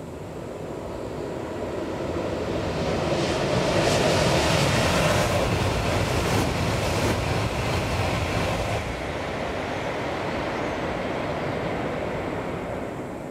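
A Tohoku Shinkansen bullet train passing at high speed on an elevated viaduct: a rushing roar of air and wheels on rail. It builds over the first few seconds, is loudest for about five seconds, then eases off as the train recedes.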